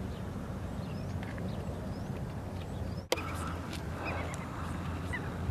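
Faint, scattered bird chirps over a steady low rumble of wind. A little past halfway the sound cuts abruptly with a sharp click to a steadier low hum with light ticking.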